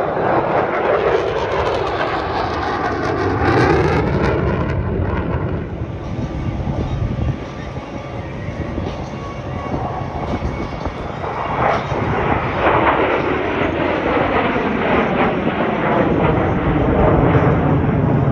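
Jet engines of a formation of military jets flying an air show display, a loud steady roar that swells and fades as they pass, with a gliding whine in its pitch.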